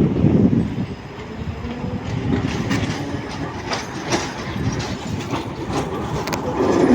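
A 71-623-00 tram car running along the track, its steady rumble broken by a quick series of clicks from the wheels over the rails through the middle of the run.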